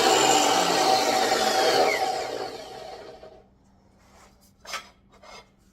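10-inch chop saw with a DeWalt DW8005 abrasive metal cut-off wheel grinding through thick metal, then winding down and fading out over about three seconds with its pitch falling. A few light knocks follow near the end.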